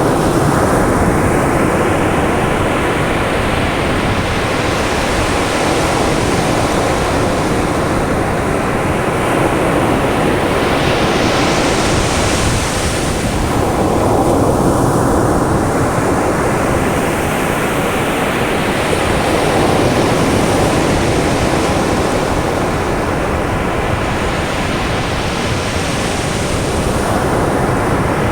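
Caribbean surf breaking on a sandy beach: a continuous rush of waves that swells each time a wave breaks and washes up, several seconds apart.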